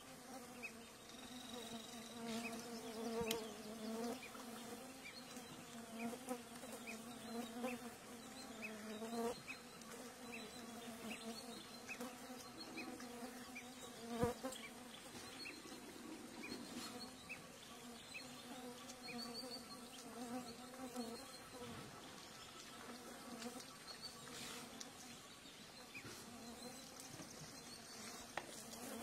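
Flying insects buzzing, a wavering drone that swells and fades repeatedly. There is a single sharp click about halfway through.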